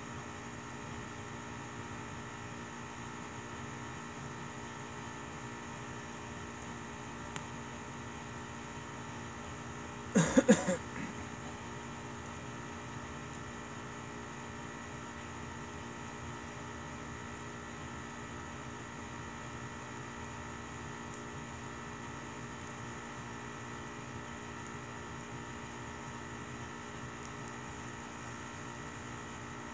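Steady hum and hiss with several fixed tones. About ten seconds in, a brief loud burst of a few quick pulses that rise in pitch, like a short call or cry.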